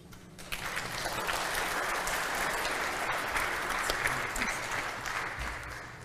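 Congregation applauding: the clapping builds up about half a second in, holds steady, and fades away near the end.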